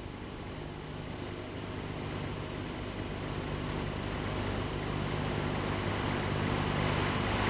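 Propeller aircraft's piston engine droning steadily, growing louder throughout.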